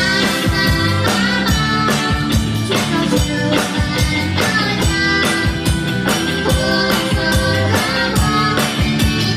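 Live rock band playing: a drum kit keeps a steady beat under electric and acoustic guitars.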